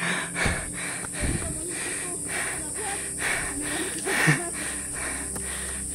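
Steady high-pitched insect drone from the forest, with a hiker's heavy breathing and faint voices.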